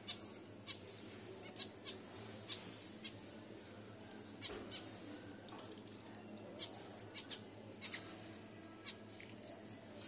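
Pet budgies and finches chirping: many short, high chirps scattered irregularly, some in quick pairs, over a low steady hum.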